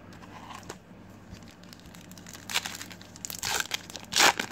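Silver foil trading-card pack wrapper being crinkled and torn open by hand, in a few short rips, the loudest near the end.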